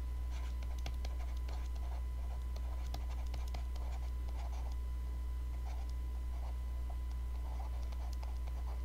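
Faint scratching and small taps of handwriting strokes, letters being written out, over a steady low hum.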